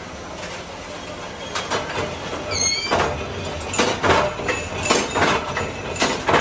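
Flywheel mechanical power press working on a steel rod fed into it, giving sharp metallic clanks about once a second over the running noise of the machine. A brief high squeak comes about two and a half seconds in.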